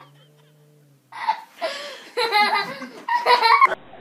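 People laughing in several loud bursts, starting about a second in and cut off abruptly shortly before the end.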